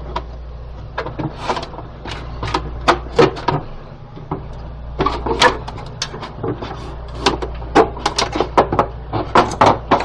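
Hard plastic parts of a Petmate pet water fountain clicking and knocking as the housing is pried apart by hand: a run of irregular sharp clicks over a steady low hum.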